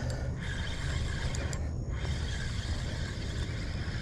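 Spinning reel being cranked steadily, winding in line against a hooked fish, over a steady low rumble.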